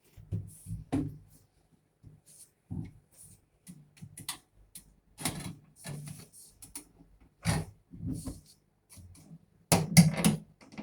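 Irregular clicks, knocks and thuds of hands working on a washing machine's door switch, with a cluster of louder knocks near the end.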